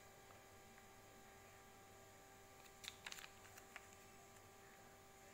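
Near silence with a faint steady electrical hum, broken about three seconds in by a quick run of small clicks and taps, then one more click.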